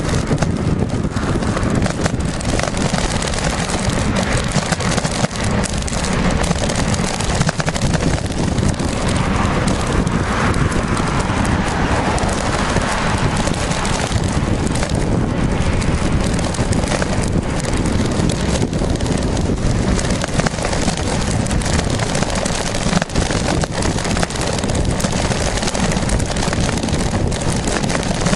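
Steady wind noise rushing and buffeting the microphone of a camera on a moving bicycle, with no clear breaks.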